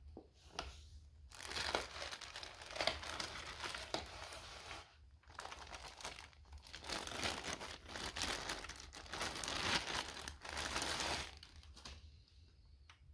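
Clear LDPE plastic bag crinkling as it is handled and pulled off a boxed device, in two long spells with a short pause between.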